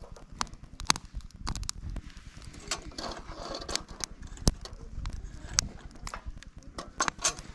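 Wood campfire crackling, with sharp irregular pops and snaps scattered throughout.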